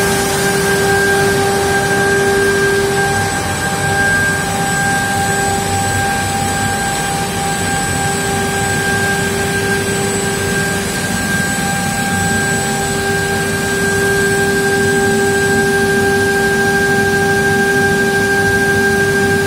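Heavy-duty automatic edgebander (NikMann KZM6-RTF-CNC) running with its dust extraction: a steady machine drone with a constant high whine.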